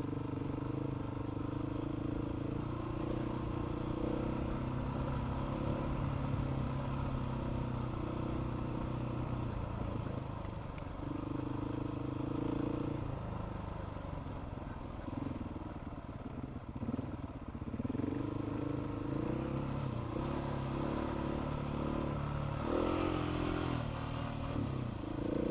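Motorcycle engine running at low speed on a rough track, the throttle opening and closing so its pitch rises and falls. A brief hiss comes in near the end.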